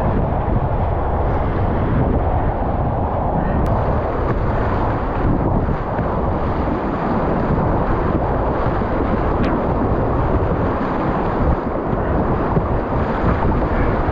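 Whitewater rapids rushing loudly and steadily around a whitewater kayak running through them, a deep, even water noise.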